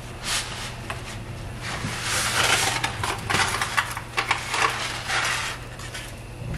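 Spaghetti package being opened and handled, its wrapping crinkling and rustling in uneven bursts with small crackles.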